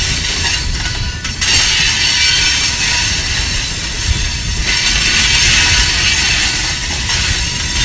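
Loaded rock hopper cars of a freight train rolling past. The steel wheels on the rails give a low rumble and a loud high hiss, which dips briefly twice as the gaps between cars go by.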